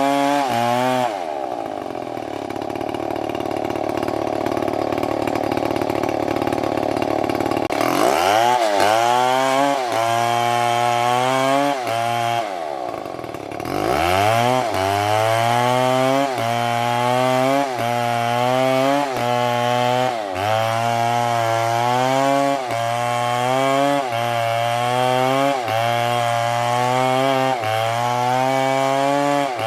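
Chainsaw engine running at high revs. It holds one steady pitch for several seconds, then repeatedly sags and climbs back about every second and a half as the chain bites into wood.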